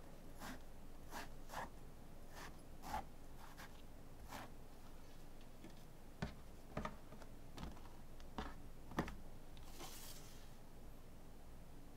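A kitchen knife slicing through raw Chinese eggplant on a wooden cutting board: a series of soft, quick strokes over the first few seconds. Then a few light knocks as the eggplant pieces are set down, and a brief scrape near the end.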